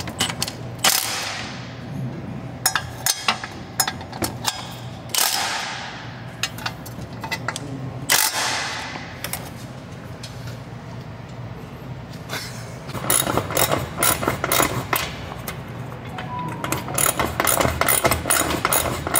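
Exhaust bolts and clamps being tightened with ratchets: three short runs in the first eight seconds, then a long stretch of rapid ratchet clicking from about two-thirds of the way in.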